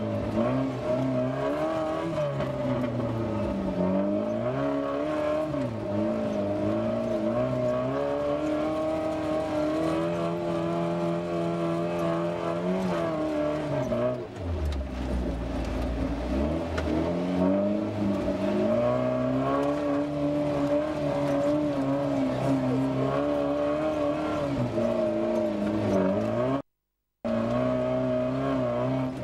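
Rally-raid car's engine heard from inside the cabin, revving up and dropping back again and again as the car drives over sand, with a steady whine running underneath. The sound cuts out completely for about half a second near the end.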